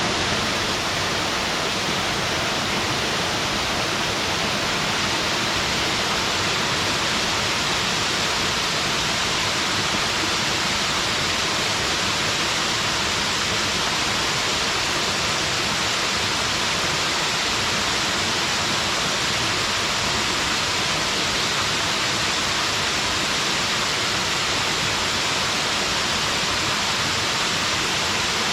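Small mountain waterfall pouring steadily into a stream, an even rushing hiss of falling water with no pauses or changes.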